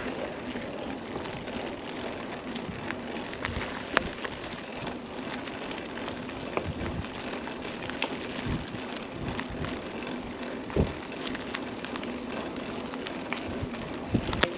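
Mountain bike rolling along a rough track: a steady crackling rush of tyre and wind noise, with scattered clicks and rattles from the bike and two sharper knocks, about four and eleven seconds in.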